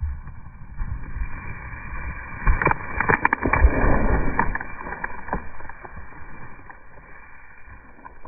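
Dog digging in loose dirt right next to the microphone, scratching and scattering soil. A run of sharp knocks and clatter about two and a half to four seconds in is the loudest part, as the camera is jostled.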